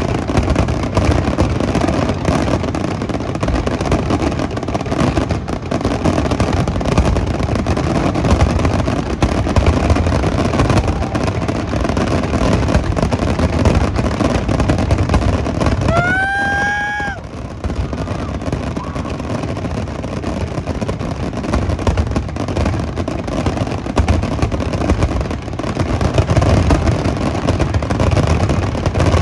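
Steady outdoor din, like traffic, with no firework bangs. Just past halfway comes one short pitched toot, like a horn, lasting about a second.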